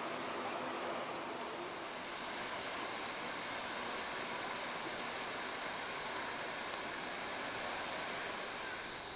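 Water tumbling over a small rocky cascade into a garden stream: a steady rushing sound.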